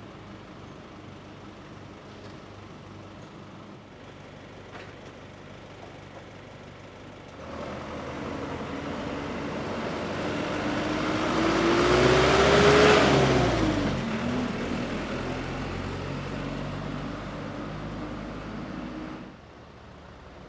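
A motor vehicle passes, its engine note rising in pitch and then dropping as it goes by. The sound swells to its loudest in the middle and cuts off abruptly near the end.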